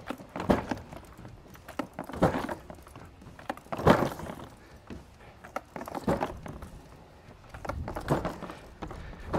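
Loaded Milwaukee Packout two-wheel cart being hauled up wooden stairs, its wheels knocking onto each step, about five knocks roughly two seconds apart, the loudest about four seconds in.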